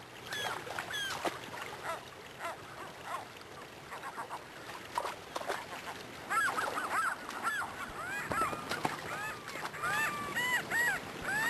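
Gulls calling again and again, short arched cries that come thicker and louder from about six seconds in, over the steady rush of a shallow river.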